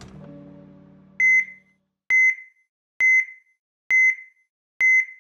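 Heart-monitor beep sound effect: a single high beep repeating evenly, about once a second, five times. The first second holds the fading tail of a low hit that ends the logo sting.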